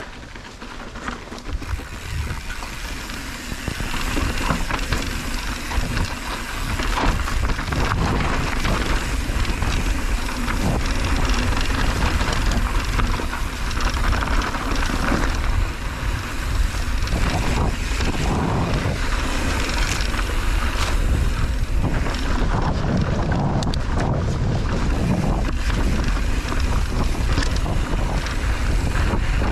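Mountain bike rolling fast down a dry, rocky dirt trail: heavy wind rush on the microphone with tyres crunching over loose dirt and stones and frequent knocks and rattles from the bike over bumps. The rush grows louder over the first few seconds as the bike picks up speed, then holds.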